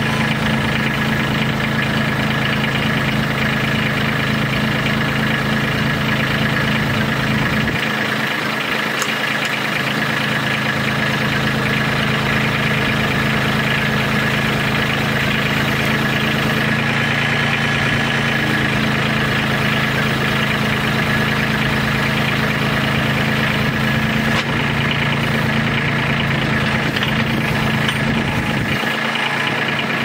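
Kubota compact tractor's diesel engine running steadily while the front loader works, raising a log on pallet forks and tipping it upright, then lowering it. The engine note shifts a few times: about eight seconds in, around seventeen seconds, and near the end.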